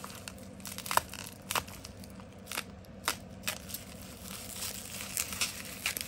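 Plastic bubble wrap crinkling as it is cut open with a small blade and peeled apart by hand, with scattered sharp crackles.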